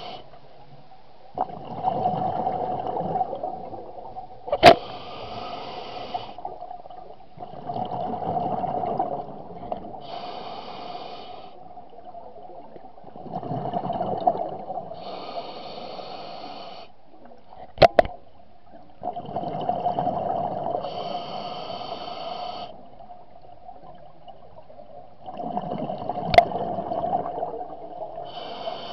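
Scuba diver breathing through a regulator underwater: a hissing inhale alternating with a rumbling, bubbling exhale, five breaths in a slow steady rhythm. Three sharp clicks stand out, near the start, midway and near the end.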